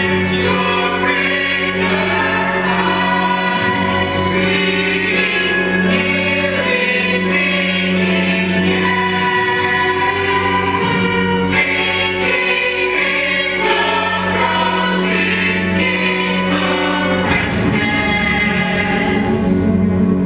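Stage chorus singing together in harmony over steady held low notes from the accompaniment.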